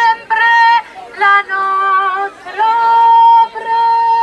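A woman's voice singing a slow religious hymn over loudspeaker horns: short phrases at first, then long held notes from about halfway.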